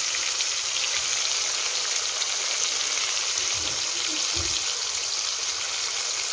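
Pieces of pigtail deep-frying in hot oil in a black pot: a steady, dense sizzle with fine crackling.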